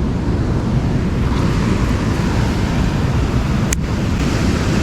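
Steady loud roar of water rushing through a dam spillway, with a single sharp click about three quarters of the way through.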